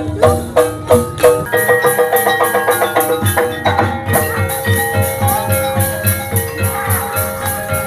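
Javanese gamelan music of the kind that accompanies ebeg dance: ringing, mallet-struck metal tones over a steady drum beat. The rhythm grows denser about a second and a half in.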